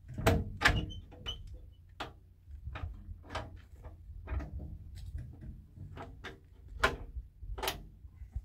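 A series of irregular knocks and clicks, about a dozen, the loudest in the first second and two more near the end, over a low rumble.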